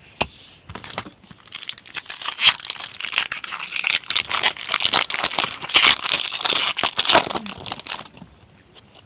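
Crinkling and crackling of a trading-card pack wrapper being torn open and handled, with irregular crisp clicks for about eight seconds before it stops near the end.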